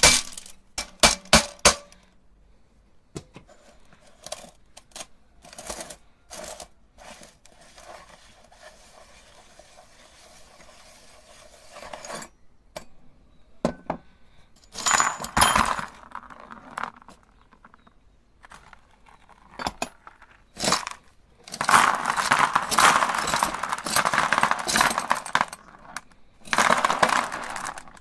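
Glass marbles clattering and clinking against the metal of a meat grinder: scattered single clicks, then long stretches of rapid rattling about halfway through and again in the last third.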